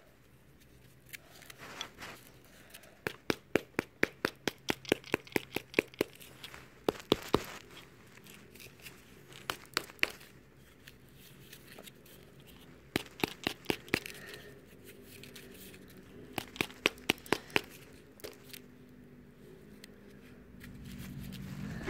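A hammer pounding a ball of crumpled aluminium foil to compact it into a sphere, in runs of sharp blows about three a second, with pauses between runs.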